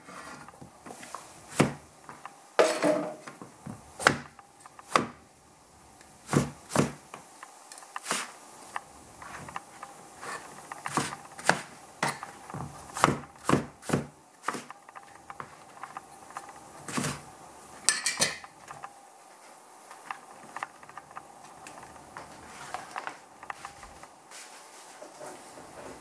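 Cleaver chopping eggplant on a plastic cutting board: irregular knocks of the blade striking the board, a few seconds apart at first and closer together in the middle, growing fewer and quieter after about 18 seconds.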